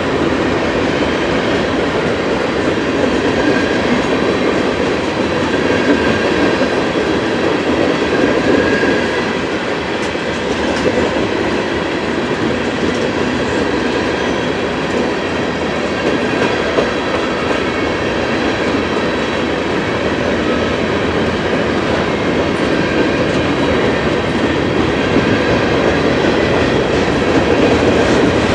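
Freight cars of a long Norfolk Southern train rolling past, the steel wheels clacking over the rail with a faint high wheel squeal running through.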